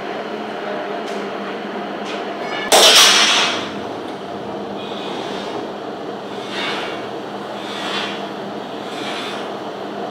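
Electric rebar cutting machine running with a steady hum; about three seconds in, a loud sharp crack with a short metallic ringing as its shear blade cuts through a 22 mm steel reinforcing bar. Fainter knocks follow about every second and a bit.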